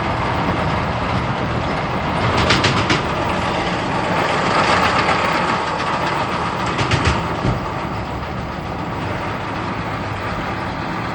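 Tractor running steadily while driving a Krone Bellima round baler. Two short bursts of rapid clicking stand out, one about two and a half seconds in and one about seven seconds in.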